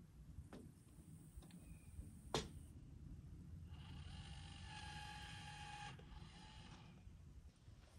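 Cordless drill running steadily for about two seconds in the middle, after one sharp click.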